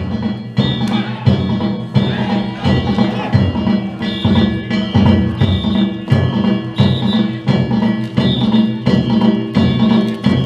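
Danjiri festival music (narimono): a taiko drum beating in a steady rhythm with small hand gongs (kane) clanging on each stroke, about three strokes every two seconds.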